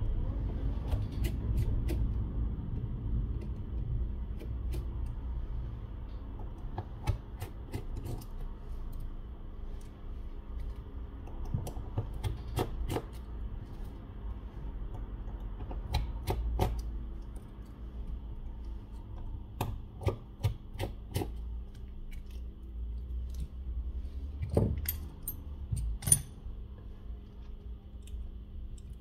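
Scattered light clicks and taps of a small Phillips screwdriver and tiny screws as screws are taken out of a phone's internal metal shield and set down on a rubber mat, over a faint steady hum.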